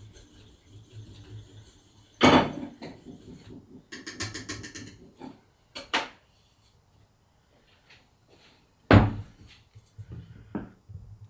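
Wire whisk clattering against a stainless steel saucepan, with a quick rattling run of strokes a few seconds in. Sharp knocks come as the pot is handled, the loudest a thud about nine seconds in.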